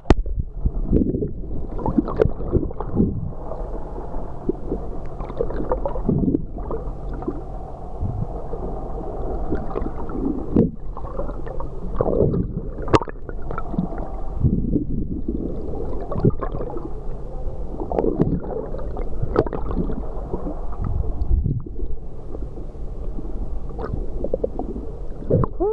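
Muffled sloshing and gurgling of seawater around a camera moving between the surface and underwater, swelling and fading every second or two over a steady low hum, with a few faint clicks.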